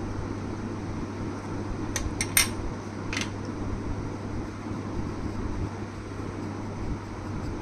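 Steady low mechanical hum, with four quick sharp clicks or clinks about two to three seconds in.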